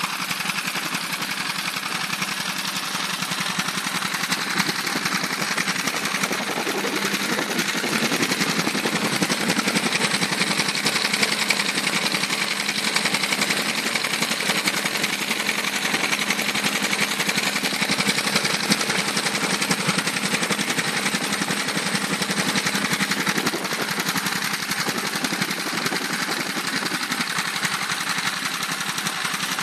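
Small fishing boat's stern-mounted engine running steadily under way, with a fast, even beat.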